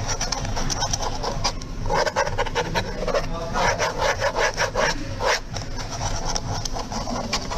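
ASMR trigger: quick, rhythmic scratching and rubbing strokes on a hard surface, densest from about two seconds in to just past the middle, over a steady low hum.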